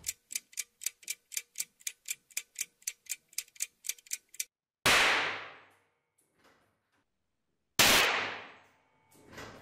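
Clock-ticking sound effect, about four ticks a second, stopping after about four and a half seconds. Then a cartridge heated in a candle flame goes off: two sharp bangs about three seconds apart, each dying away over about a second.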